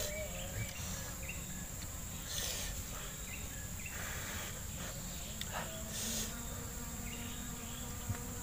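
Insects drone with one steady, high-pitched buzz. A few brief, soft rustles break in now and then.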